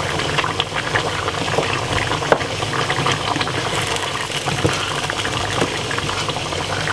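Beef curry bubbling at the boil in a non-stick pot, a steady bubbling with many small pops, as a wooden spoon stirs through it.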